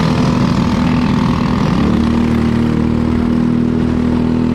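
Racing kart engine running at a steady pitch, with wind and track noise; the note settles into a steadier, cleaner drone about two seconds in.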